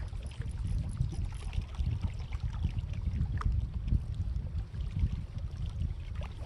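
Wind buffeting the microphone: a low, fluctuating rumble, with a few faint ticks over it.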